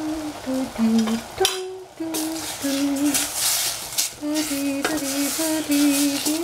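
A person humming a slow tune in held notes over the sizzle of bok choy and mushroom frying in oil in a stainless steel pot. A wooden spatula stirs the vegetables, with a couple of sharp clicks against the pot.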